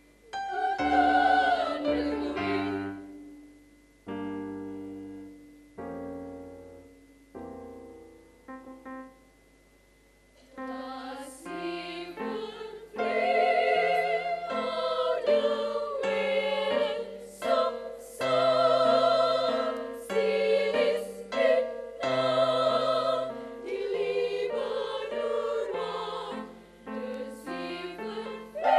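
A choir singing with piano accompaniment. A sung chord fades, a few seconds of soft piano notes follow alone, and about ten seconds in the choir comes back in and sings on in full.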